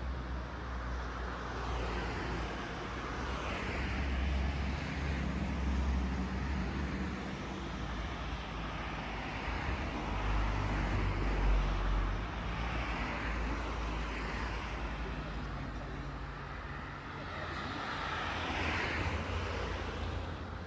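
Steady low rumble of motor engine noise, with faint voices at times.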